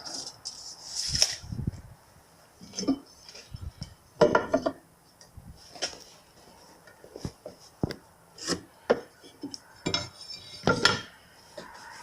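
Irregular clinks, knocks and short scrapes of tools and parts being handled while working on an old television set, with a louder clatter about four seconds in.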